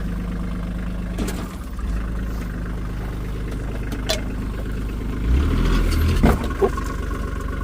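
Skid steer engine running steadily, then working harder with a deeper, louder note for about a second near the end as the hydraulics work to tip a load of gravel, with a couple of sharp knocks.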